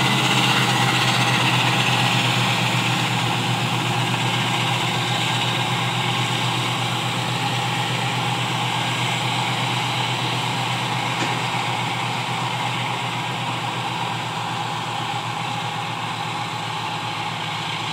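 Self-propelled forage harvester chopping standing corn: a steady engine drone under the rush of the cutterhead and blower, slowly fading as the machine moves away.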